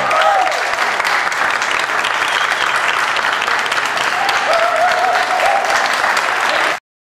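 Audience applauding, with a voice or two calling out over the clapping. The applause cuts off abruptly near the end.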